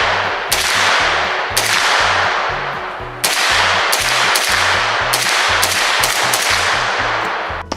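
Bulgarian Arsenal SLR-107FR AK rifle in 7.62x39mm firing about nine semi-automatic shots, a second or less apart with a few longer pauses, each shot trailing off in a long echo.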